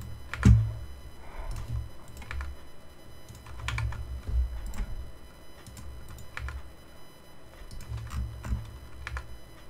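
Irregular clicks of a computer keyboard and mouse, roughly one a second, the loudest about half a second in, over a low rumble.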